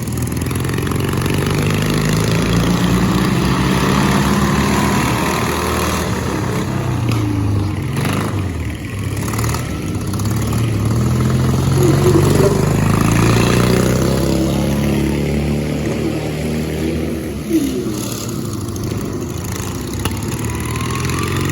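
Racing lawn mower engines revving at speed, several at once, their pitch rising and falling as they go by, with a brief sharp knock about three-quarters of the way through.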